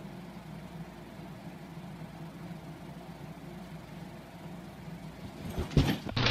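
A low, steady hum, with a few brief knocks near the end.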